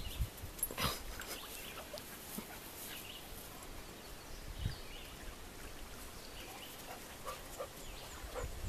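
Golden retriever digging in sand, its front paws scraping the sand, with a sharp scrape about a second in; then the digging stops and the dog stands panting softly.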